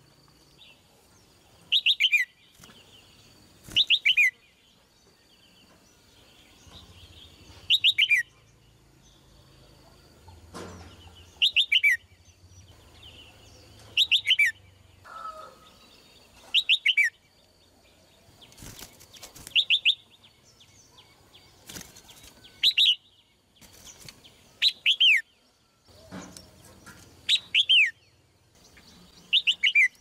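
Red-whiskered bulbul calling: a short burst of quick, falling whistled notes, repeated about every two to three seconds.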